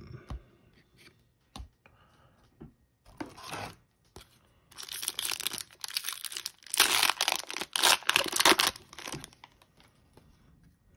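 Wrapper of a 2021-22 Upper Deck MVP hockey card retail pack being torn open and crinkled by hand. There is a short rustle about three seconds in, then a longer stretch of tearing and crinkling from about five to nine seconds, and after that only faint handling noise.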